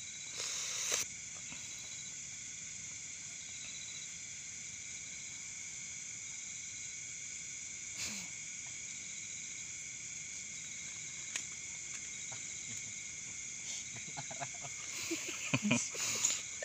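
A steady night-time insect chorus, trilling in several high pitches without a break. From about fifteen seconds in there is a burst of rustling and knocks as a plastic bag is handled.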